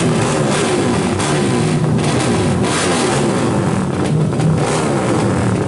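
Drag-race motorcycle engines running and revving, several overlapping at once, their pitch wavering up and down.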